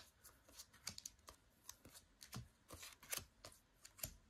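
Faint, irregular clicks and light rustles of sleeved trading cards being handled and set down on a table.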